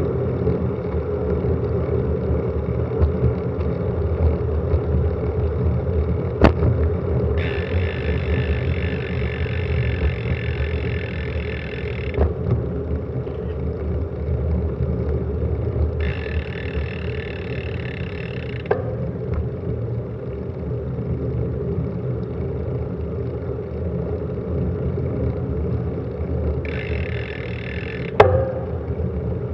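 Wind rushing over an action camera's microphone, with road and tyre rumble, on a fast bicycle descent. Three stretches of higher hiss or whirring come and go. A few sharp knocks are heard, the loudest near the end.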